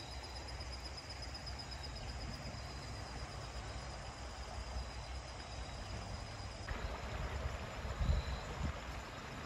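Shallow creek trickling steadily over rocks, with a low rumble underneath that swells briefly about eight seconds in and a faint high insect trill.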